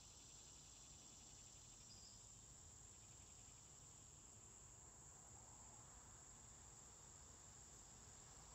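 Near silence with faint, steady, high-pitched insect trilling that runs without a break.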